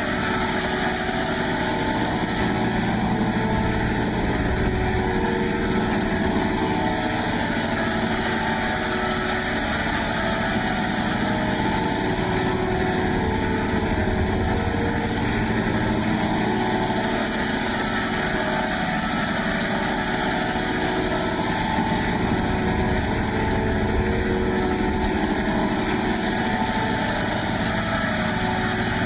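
A steady, engine-like drone run through the 'G Major' meme audio effect: layered, pitch-shifted copies of the sound with slowly wavering gaps in its tone, sustained without a break.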